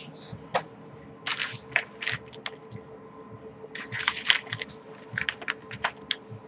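Typing on a computer keyboard: irregular runs of keystroke clicks, densest about four seconds in, over a steady faint electrical hum.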